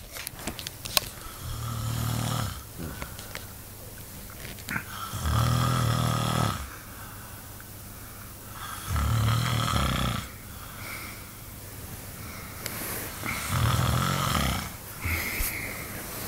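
A sleeping man snoring: four loud, low snores about every four seconds, with quieter breathing between them.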